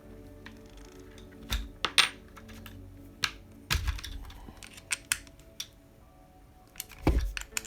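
Irregular sharp clicks and taps of a small tool and hard plastic model-kit parts being handled while a wheel's flange nut is tightened. Faint background music runs underneath.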